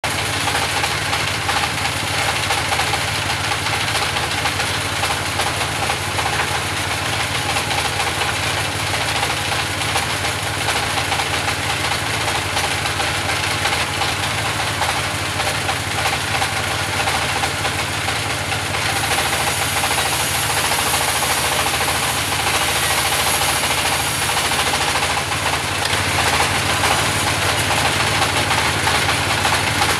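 Engine-driven band sawmill running steadily, a continuous machine drone with the hiss of the saw; the high hiss grows brighter about two-thirds of the way in.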